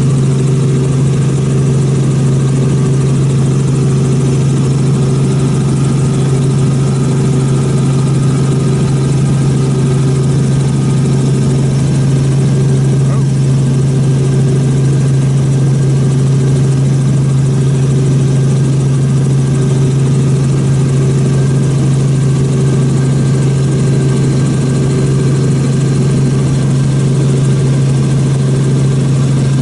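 Steady drone of an aircraft's engine and propeller heard from inside the cabin, holding one constant pitch.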